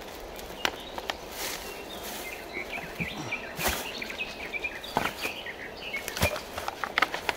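Outdoor forest sounds: scattered sharp clicks and knocks, like steps and handling of gear, with short bird chirps in the middle.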